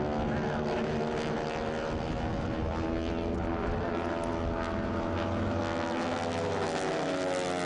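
North American AT-6 Texans' Pratt & Whitney R-1340 Wasp radial engines and propellers droning overhead in formation flight, a steady pitched engine note whose pitch bends slightly near the end as the aircraft pass.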